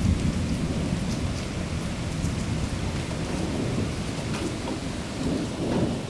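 Thunder rumbling low and slowly fading, over steady rain with scattered drops tapping.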